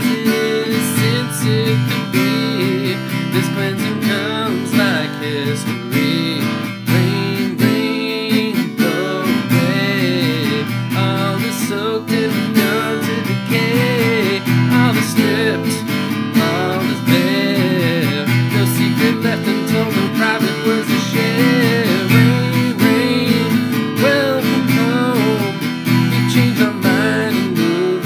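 Acoustic guitar strummed steadily, playing chords as a song's accompaniment.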